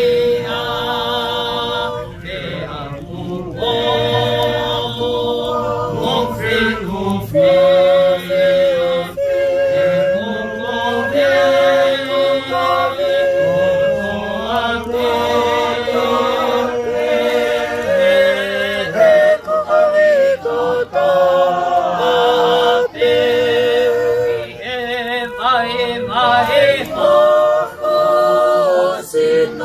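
Unaccompanied group singing of a Tongan hymn, several voices in harmony with long wavering held notes.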